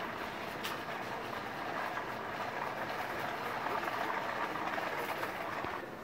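Wire shopping trolley being pushed along, its wheels rolling over the hard shop floor with a steady noise that drops away near the end.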